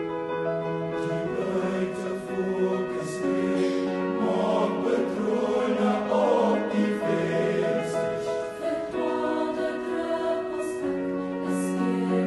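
Mixed high-school choir singing in harmony, holding chords that shift every couple of seconds. The middle stretch is busier and a little louder, with moving voices. Sharp 's' consonants cut through a few times.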